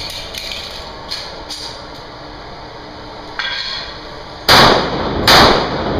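Two handgun shots about three-quarters of a second apart near the end, each ringing with the echo of an indoor range, after a few lighter knocks and clicks.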